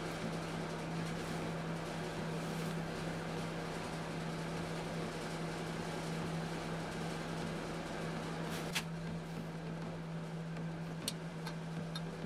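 Steady mechanical hum with one constant low tone, with a few light clicks in the last few seconds.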